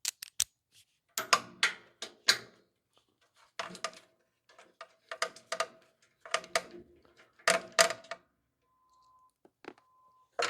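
Hand tools and metal parts clicking and clattering in short bursts about a second apart, as a battery connection or cover screws are being worked on; a faint steady high tone sounds near the end.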